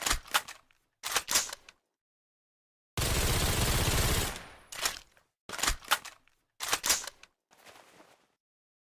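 Sound effect of a suppressed Mauser carbine rifle firing: short groups of sharp cracks, and about three seconds in a loud unbroken rush of noise lasting just over a second. The last group near the end is fainter.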